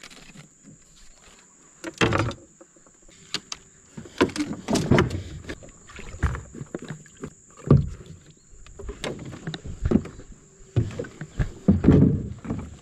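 Irregular knocks and thumps on the hull of a small fibreglass boat as it is handled and shifted on the water, loudest about two seconds in and again near the end.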